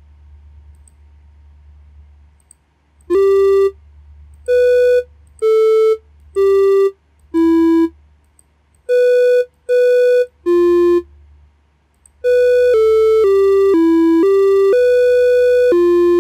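Electronic melody notes from the micro:bit MakeCode melody editor. First come single notes of about half a second each, a few at different pitches, as notes are set in the editor grid. From about twelve seconds in, the short tune plays straight through, one note after another.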